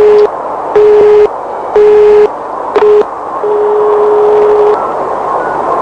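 Telephone line tone heard down the line: a single steady pitch beeping on and off about once a second, three times and a cut-short fourth, then held as one longer tone for about a second and a half, over a steady hiss. The even on-off beeping is the pattern of a busy signal.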